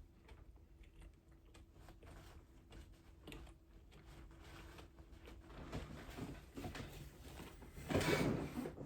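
Faint close-miked chewing: soft, scattered mouth clicks and smacks, with a louder, noisier stretch near the end.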